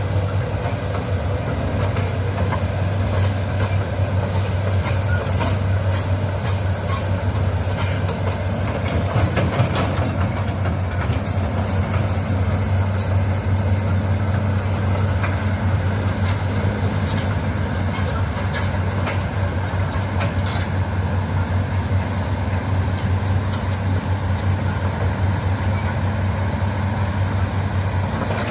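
Hitachi excavator's diesel engine running steadily, with scattered clicks and knocks.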